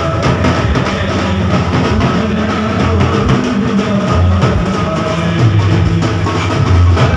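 Loud live band music: an electronic keyboard playing a melody over a drum beat, amplified through the truck's speakers.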